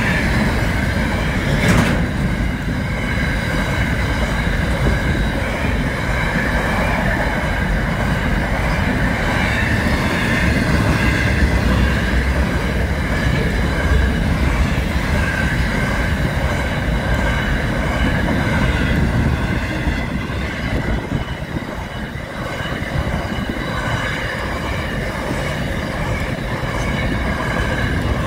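Intermodal container freight train passing at speed over a level crossing: a continuous heavy rumble of wagons and wheels on the rails, with a steady high-pitched tone above it. There is a single sharp knock about two seconds in.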